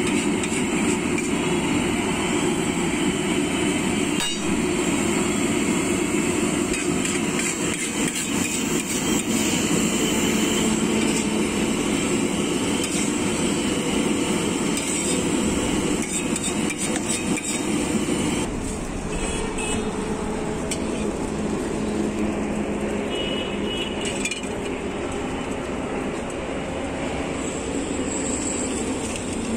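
Metal spatula scraping and clinking on a large flat iron griddle, with repeated short knocks, over a steady background din that eases about two-thirds of the way through.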